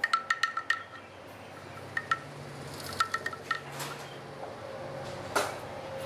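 Metal parts of a washing machine motor clinking as they are handled: quick runs of light clinks that ring at the same pitch each time, and one heavier knock a little after five seconds in.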